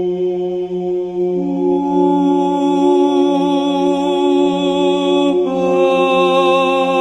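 Background music: slow chanting in long held notes over a steady low drone. A higher note joins about a second and a half in, and the notes change about five seconds in.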